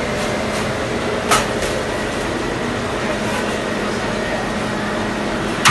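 Matzah bakery machinery, with matzah sheets on a conveyor through the oven, running with a steady mechanical rush and hum. A short sharp click or knock comes about a second in and another near the end.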